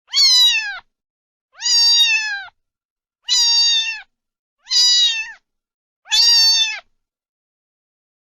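Domestic cat meowing repeatedly: five loud, high meows about one every second and a half, each dropping in pitch at the end.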